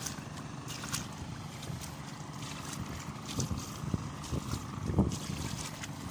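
Turtle tiller's engine running steadily, a low hum mixed with wind on the microphone, with a few short knocks.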